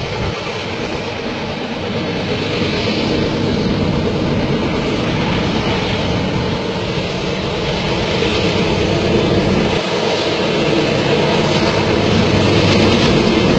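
Long freight train running on the rails, a steady rumble that grows a little louder towards the end.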